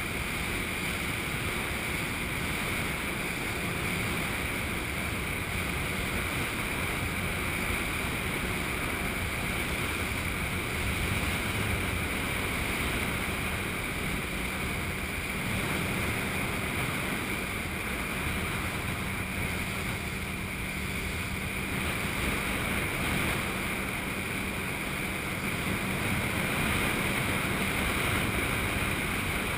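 Motorboat under way on a lake: a steady drone of the engine mixed with the rush of water along the hull and some wind noise.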